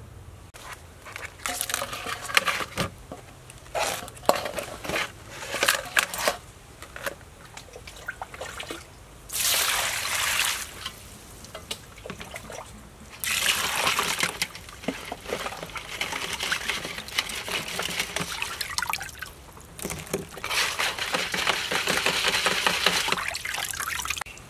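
Water splashing and sloshing as cut mud crab pieces are washed by hand in a bowl of water, with knocks of crab shell against the container early on. Near the end, a pot of water boiling.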